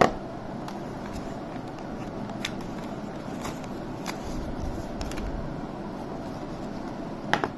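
Unboxing handling noise: a knock at the start, then scattered light clicks and taps as a plastic phone charger and cable are lifted from a cardboard retail box and set down, with a quick double tap near the end. A steady background noise runs under it.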